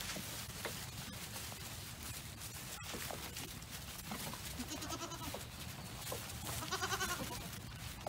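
Goats bleating twice, short wavering calls about five and seven seconds in, over faint scattered clicks and rustling from the herd at the feed trough.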